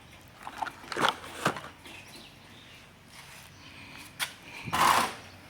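Cardboard model-kit boxes being handled: a few soft knocks and rustles, a sharp click, then a louder brief scraping rustle near the end.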